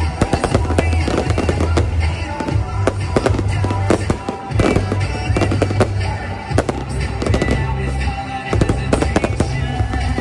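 Aerial fireworks going off in many rapid, irregular bangs, over music with a steady deep bass.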